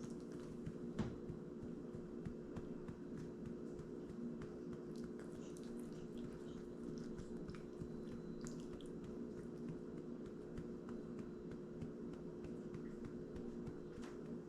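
Small dog licking and smacking its mouth: scattered soft clicks, one sharper about a second in, over a steady low hum.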